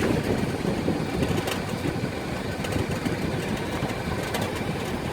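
Land Rover Discovery 3 on the move, heard near a rear wheel: a steady rumble with a few faint clicks, the unexplained noise being traced to the rear wheel.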